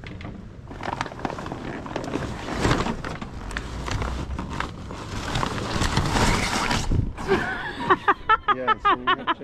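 Rough rustling and scraping of sailcloth and a sail bag being handled and lowered over the boat's rail on a rope. It grows louder for a few seconds, then stops about seven seconds in, and voices follow.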